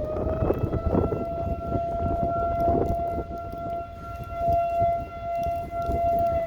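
Outdoor warning siren holding a steady wailing tone after winding up, over the rumble of gusty wind on the microphone.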